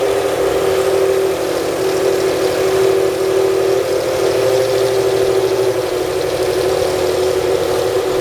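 McLaren Honda MP4/5 Formula 1 car's 3.5-litre Honda V10 idling steadily.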